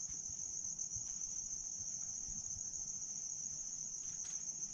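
Crickets chirping in a steady, continuous high-pitched chorus.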